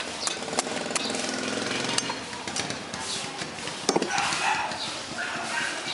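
Quick, irregular knocks of a knife cutting fruit against a board, over a busy background of voices and street noise.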